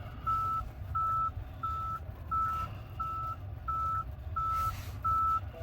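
Tesla Cybertruck's reverse-gear warning beeping as it backs up. It gives eight short, evenly spaced high beeps at one pitch, about one and a half a second, over a low steady rumble.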